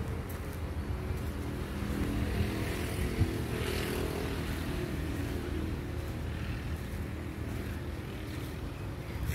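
Diesel truck engine idling: a steady low rumble that grows a little louder for a few seconds in the middle.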